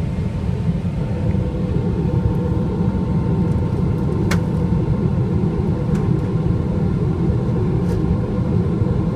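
Boeing 777 jet engines and rushing air as a steady low rumble during the takeoff climb, with a faint steady tone above it. There is a sharp click about four seconds in and two fainter ones later.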